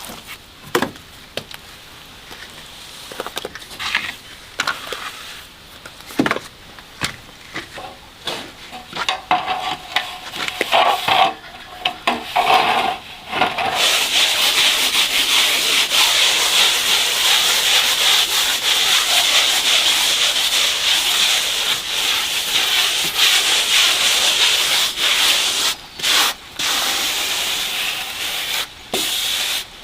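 A hand tool scraping and rubbing on a hard surface: scattered knocks and taps at first, then from about halfway a steady, continuous scraping with a few brief breaks.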